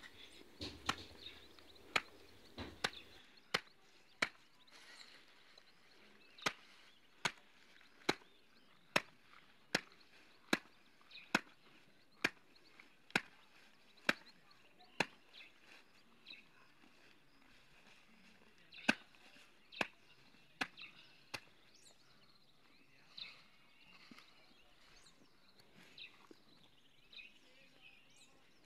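Machete chopping maize stalks and leaves laid on the ground: a run of sharp strokes a little under one a second, then a few scattered strokes later.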